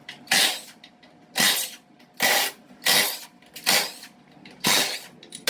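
Six short bursts of a compressed-air shop tool, each about a third of a second long and roughly a second apart, with a faint background hum between them.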